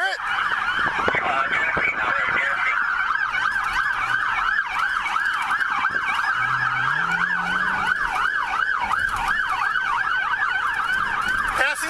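Police siren in a rapid yelp, about four up-and-down sweeps a second, heard from inside a patrol car's cabin during a high-speed pursuit.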